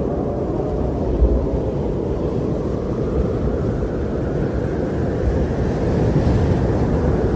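Wind blowing as a steady low rumble, swelling slightly about six seconds in.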